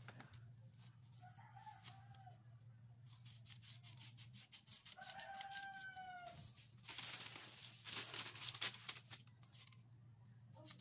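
Scissors snipping through pattern paper in a run of quick cuts, densest and loudest in the second half. A chicken calls in the background twice, briefly about a second and a half in and longer about five seconds in.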